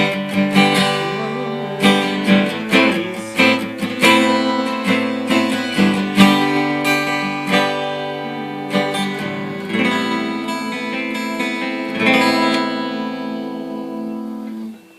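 Acoustic guitar strumming chords. The last chord, struck about three seconds before the end, rings on until it stops abruptly.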